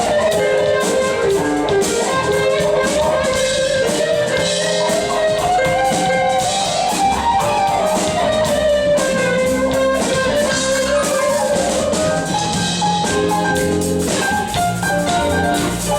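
Smooth jazz band playing live, with guitar and drum kit. A lead melody slides up and down in pitch over the band.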